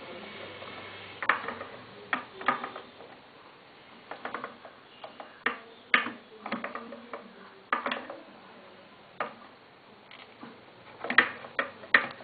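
Metal gears and linkage of a hand-cranked cut-away Atkinson-cycle model engine, built from a 150cc motorcycle engine, clicking and clacking irregularly as the crankshaft is turned, with a few louder clacks in quick clusters.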